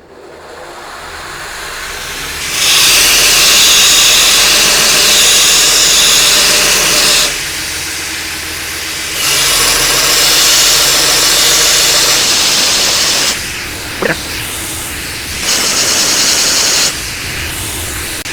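Belt grinder running, its motor winding up over the first couple of seconds, with three loud spells of abrasive grinding as the wooden knife handle is pressed to the belt, the longest about four seconds.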